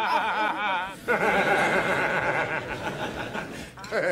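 A man laughing heartily in a string of short chuckling laughs, edited together from separate clips. The sound breaks off abruptly about a second in and again near the end.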